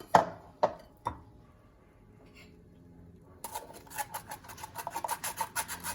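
A spoon knocks three times against a strainer, then, after a short pause, scrapes back and forth in quick strokes, working ground orange pulp through the strainer to press out the juice.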